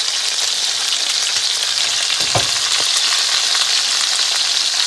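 Whole chicken searing in hot vegetable oil in a cast-iron skillet: steady sizzling with fine crackling pops.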